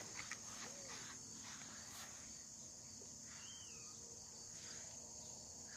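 Faint, steady high-pitched chirring of crickets, with a few soft clicks near the start and a brief faint chirp in the middle.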